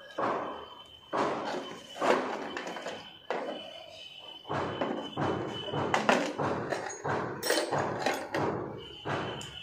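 Repeated dull knocks and thuds, about one a second and irregularly spaced, with a faint steady high tone coming and going behind them.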